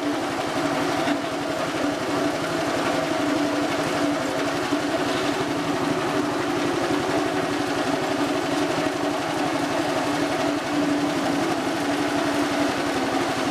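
Small stationary petrol engine running steadily, driving a soybean-cracking mill by belt as boiled soybeans are ground, with water running into the hopper. The sound is an even hum with no changes.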